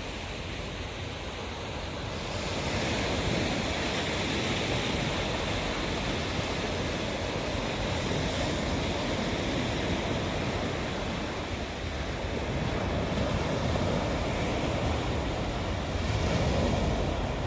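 Sea waves washing on the shore, a continuous rush that swells louder a couple of times, with wind rumbling on the microphone.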